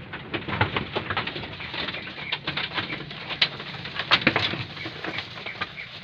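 Goats eating sweet potato vines: a dense run of crunching, rustling and clicking as the leaves are torn and chewed.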